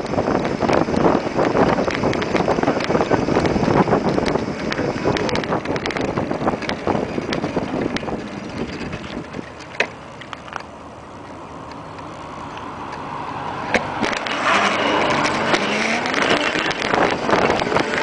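A small vehicle's motor and road noise while riding down a street. The sound drops away about ten seconds in, then builds again with a rising and falling pitch as it speeds back up.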